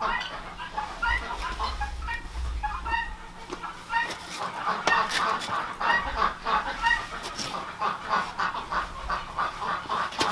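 A flock of farm poultry clucking and calling, with many short calls following one another throughout.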